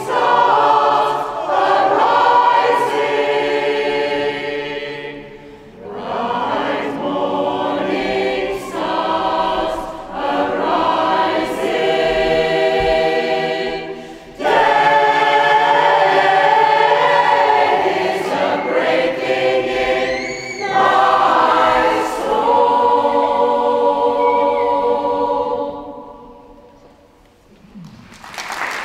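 Community choir singing in a cathedral, phrase by phrase with short breaths between. The final chord fades out near the end, and applause breaks out just before it closes.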